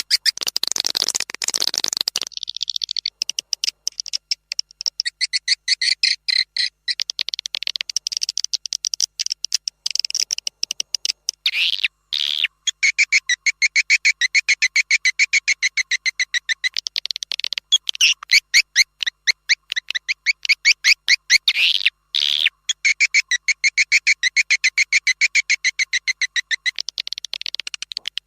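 Recorded call of edible-nest swiftlets: rapid, high chattering chirps and clicks in long repeating runs, a swiftlet lure call of the kind played to draw the birds into a nesting house. It opens with about two seconds of hiss.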